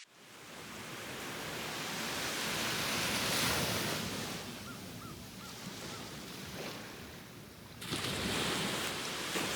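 Ocean surf: a wave washes in, swelling to a peak and then ebbing back, with four faint short chirps in the middle. Near the end the sound cuts abruptly to a steadier rushing noise.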